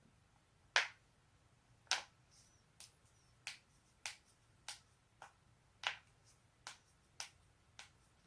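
A person cracking their joints: a series of about eleven sharp pops, one every half second to a second, the first two and one about six seconds in the loudest.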